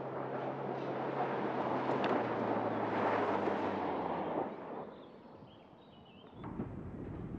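Mercedes-Benz GLC 300d's four-cylinder diesel running hard through a slide on loose dirt, tyres scrabbling and spraying soil with a steady engine hum beneath. The sound swells and then fades away about four and a half seconds in. Near the end a low rumble of wind on the microphone comes in.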